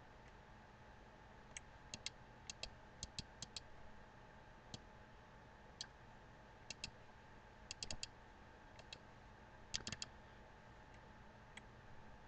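Computer mouse buttons clicking: about a dozen short, sharp clicks, many in quick pairs, scattered over a faint steady hum.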